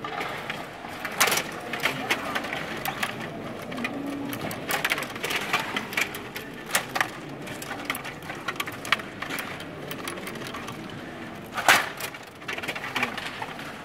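Rod table hockey in play: quick clicking and rattling of the metal control rods turning and sliding the plastic players, with sharp knocks of the puck against players and boards. One louder knock comes near the end.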